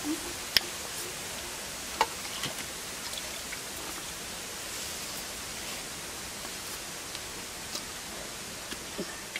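Drumstick pods being cut on a boti blade: a sharp snap about half a second in, another at two seconds, then a few fainter ticks, over a steady hiss.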